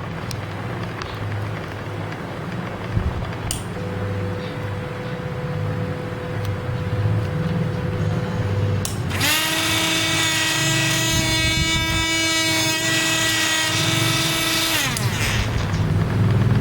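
Drilling machine running with a low throbbing. About nine seconds in, a loud steady whine with many overtones starts, holds for about five and a half seconds, then drops away.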